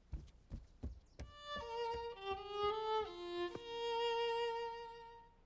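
Background score: a short violin melody of a few notes that settles on one long held note and fades, preceded by several soft, evenly spaced taps in the first second.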